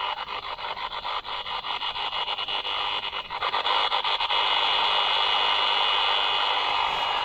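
XHDATA D-219 portable radio on shortwave between stations: static hiss full of sharp crackling clicks for the first few seconds, settling into a steadier hiss.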